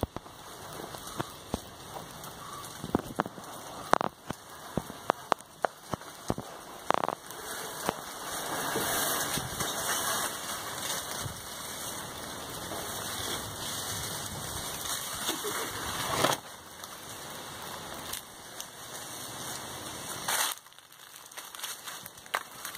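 Dry leaf litter crackling and rustling as it is trodden and disturbed: a run of sharp crackles over the first seven seconds, then a continuous rustling hiss that drops off suddenly about sixteen seconds in.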